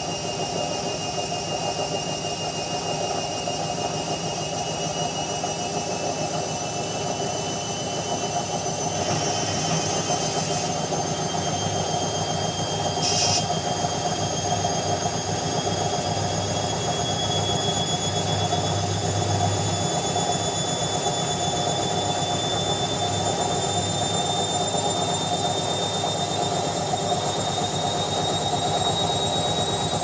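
Indesit front-loading washing machine running its spin cycle: a steady motor hum with a high whine that rises slowly in pitch as the drum spins up.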